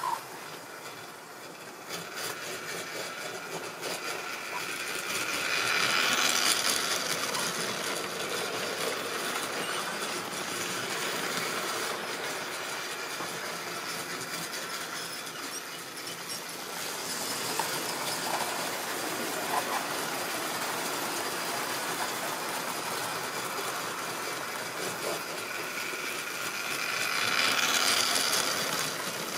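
Tri-ang OO-gauge model trains running on the layout's track, a steady rolling rattle of small wheels on rail. It swells loudest about six seconds in and again near the end, as a steam locomotive passes close by.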